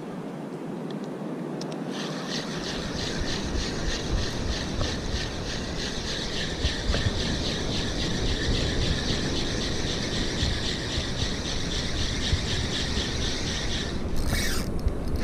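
Spinning reel being cranked steadily on the retrieve, a rhythmic whirring from the reel's gears and rotor that stops a second or so before the end. It is followed by a couple of brief hissing bursts, over a low rumble of wind and surf.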